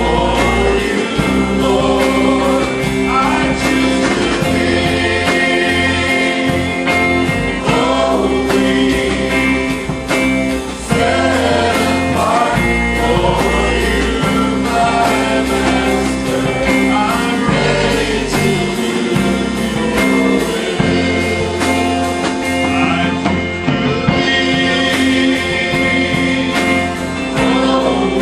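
Live church worship band playing a worship song: electric guitars, bass and drums under several singers singing together.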